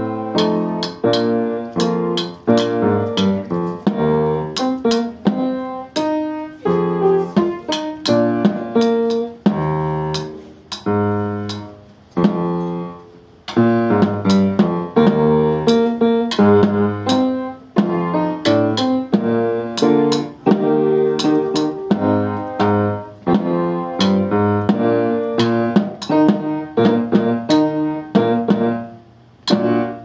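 Music of sharply struck, pitched notes that die away quickly, a tune with chords in a steady beat, like a piano or mallet keyboard, with a few brief pauses between phrases.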